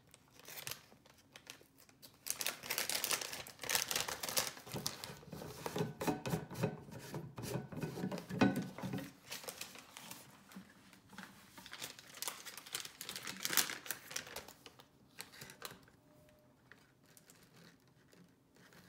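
Plastic MRE flameless ration heater bag being crinkled and pulled open by hand, an irregular crackling that is loudest in the first half and dies down in the last few seconds.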